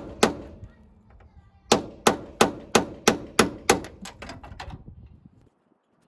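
Hammer blows on metal: one strike, then a run of about ten at roughly three a second, the later ones lighter, each with a short ring.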